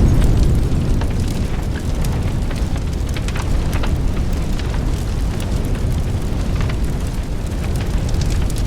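Background music, heavy in deep bass, with a steady rumble and scattered faint clicks.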